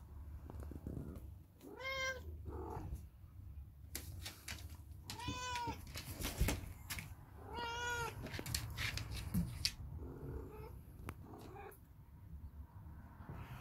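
A kitten mewing three times, each a short high call that rises and falls in pitch, with scattered knocks and rustles in between.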